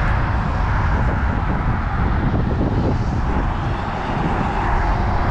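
Steady rushing rumble of wind buffeting an action camera's microphone on an open bridge, loud and fluttering at the low end.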